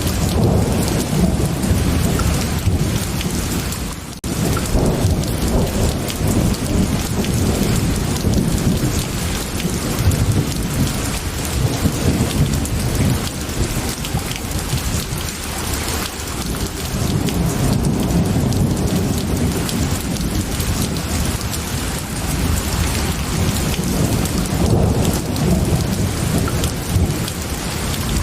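Steady heavy rain with low rolling thunder that swells and fades several times. The sound drops out briefly about four seconds in.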